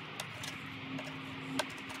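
Background music with a plucked guitar, one note held for about a second and a half, with a few sharp clicks, the loudest near the end.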